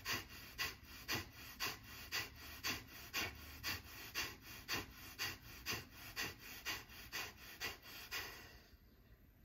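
Kapalbhati breathing: short, forceful exhalations through the nose, about two a second, each followed by a passive inhale. The pumping stops near the end.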